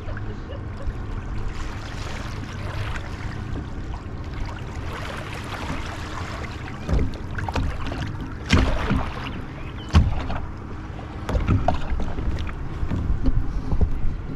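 Wind on the microphone and water around a kayak, a steady low rumble, with several knocks and thumps against the boat in the second half, the loudest about ten seconds in.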